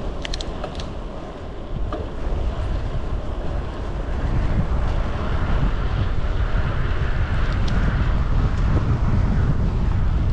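Wind buffeting the microphone on a moving bicycle: a heavy, uneven low rumble under a rushing hiss that gets louder about four seconds in, with a few light clicks near the start.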